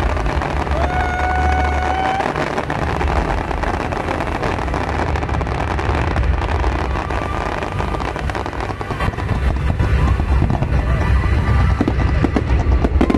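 Fireworks display: a continuous low rumble of bursts, with sharp crackling growing denser and louder in the second half. A short held tone sounds briefly near the start.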